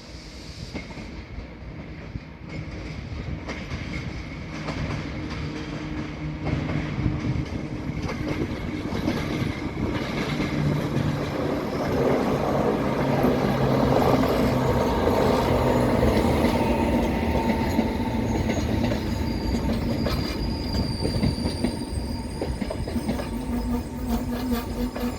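Train running through the station, growing louder to a peak about halfway through, with wheels clattering over the rails. A thin, high wheel squeal comes in near the end.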